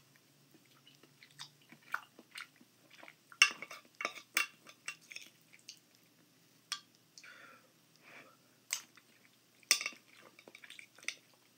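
Someone eating from a glass baking dish: a metal fork clicking and scraping against the glass at irregular moments, the sharpest clicks about three and a half, four and a half, nine and ten seconds in, with soft chewing between.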